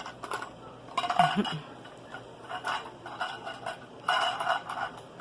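Toy cookware and play food clattering on a toy kitchen, with scattered light knocks and clinks and a busier burst of rattling near the end.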